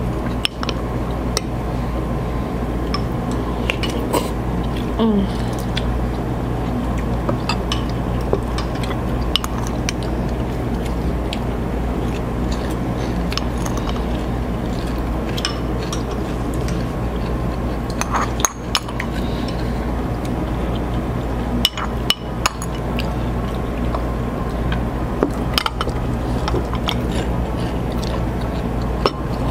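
Spoons clinking against soup bowls while eating soup: scattered light clinks and taps over a steady low hum.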